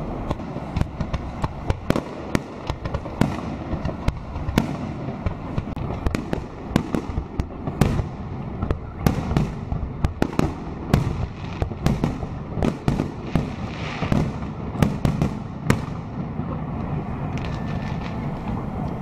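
Festive fireworks salute bursting: many sharp bangs in quick, irregular succession over a low rumble. The bangs stop a few seconds before the end.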